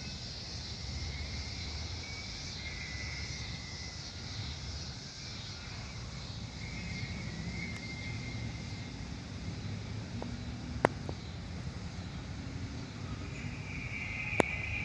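Low, steady rumble of a Union Pacific train receding into the distance, with an even outdoor hiss. Two sharp clicks, one about eleven seconds in and one near the end.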